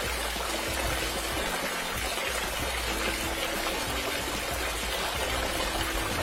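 Water pouring and splashing in a steady rush, as from a freshly drilled borewell.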